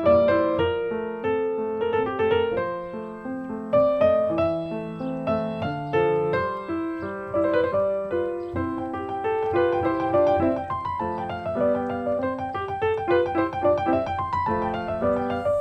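Piano music playing, a flowing run of notes with no speech.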